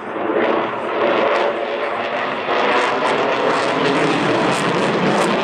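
Loud jet noise from the Sukhoi Su-35's twin turbofan engines as the fighter manoeuvres overhead. It swells about half a second in and holds, with a few sharp crackles near the end.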